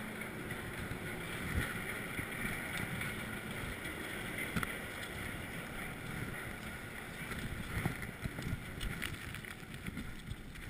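Strong wind blowing over the microphone: a steady rushing noise with scattered small knocks.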